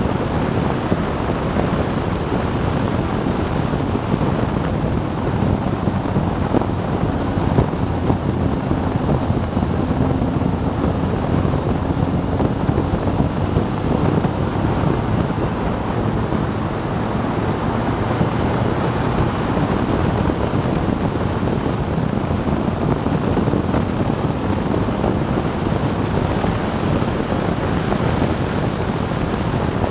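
Steady wind rush buffeting the microphone of a camera on a motorcycle at road speed, with the motorcycle's engine faintly beneath it.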